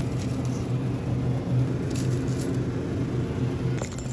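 Steady low hum of supermarket background noise, with a couple of faint light clicks from handling groceries.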